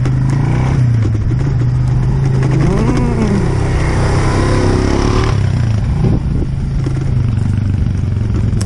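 Off-road riding noise from an electric scooter and a Suzuki KingQuad ATV running together on a dirt track: a steady motor drone with a low hum, wind on the microphone, and a brief rise and fall in pitch about three seconds in.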